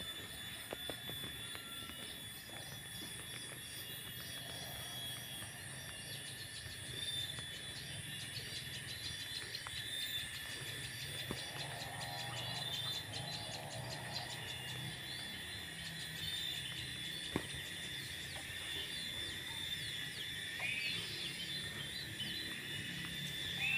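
Steady chorus of insects chirring at several high pitches, unbroken throughout.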